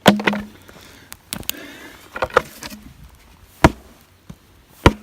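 A series of sharp, irregular wooden knocks as a wooden bee swarm trap box is banged about, knocking out an ant colony that has nested in it. The first knock is the loudest.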